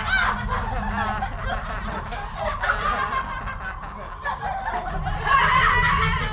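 Several children laughing and snickering in mocking laughter, their voices overlapping, louder near the end.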